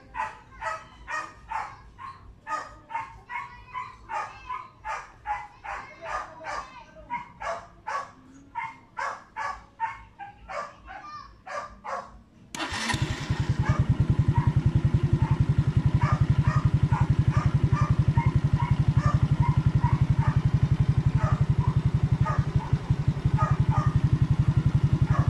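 A dog barks repeatedly, about twice a second. About halfway through, the Suzuki Raider J115 Fi's single-cylinder engine starts and settles into a steady idle.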